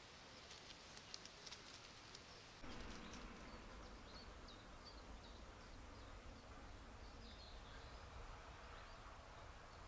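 Faint outdoor ambience: a few faint ticks about a second in, then a low steady hiss comes in, with faint, scattered bird chirps.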